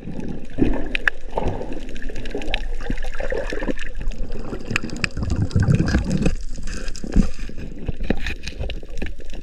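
Water sloshing and gurgling around a swimming diver, with scattered small clicks.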